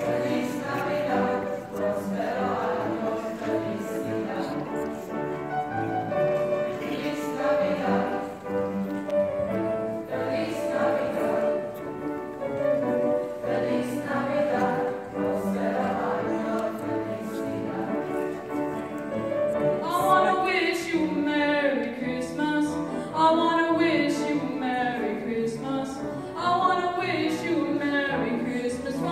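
A boys' choir singing together, several voices holding and moving between pitches at once. About two-thirds of the way through the singing grows fuller and brighter.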